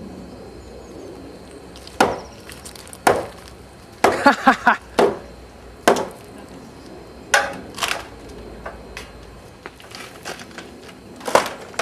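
Wooden outhouse being pulled down: its boards crack and splinter in a string of sharp cracks and knocks, with several in quick succession about four seconds in.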